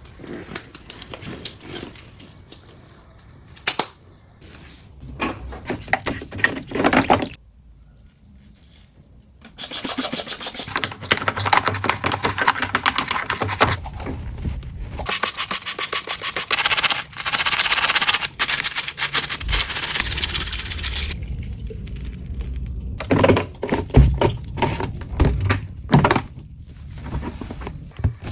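Hands working at a washing machine: rubbing, scraping and knocks on plastic. Partway through comes a stretch of about ten seconds of fast, even rasping.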